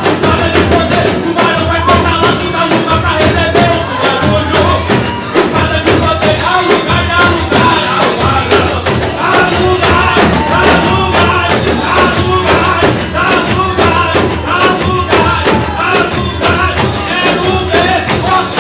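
Loud live worship music: a man singing into a microphone over the accompaniment, with tambourines struck and shaken in rhythm throughout.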